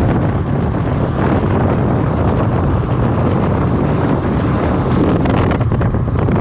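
Wind buffeting the microphone, over the steady road and engine rumble of a moving vehicle.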